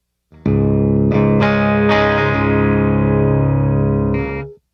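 Heavily distorted electric guitar through the GupTech Evil Donkey preamp pedal: a few chords picked in quick succession and then let ring, cutting off suddenly into silence as the always-on noise gate closes.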